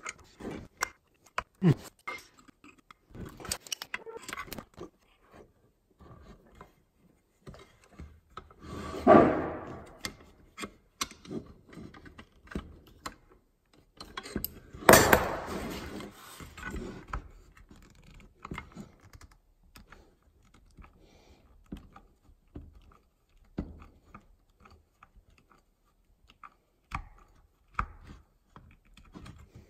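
Hand tools working screws out of a cordless circular saw's metal housing: a screwdriver and locking pliers making irregular clicks, metallic clinks and scrapes, with two louder clatters about nine and fifteen seconds in. A screw proves tight.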